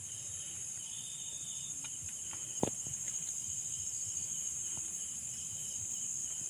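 Steady high-pitched trilling of crickets and other night insects, with a few faint clicks and one sharper tick about two and a half seconds in.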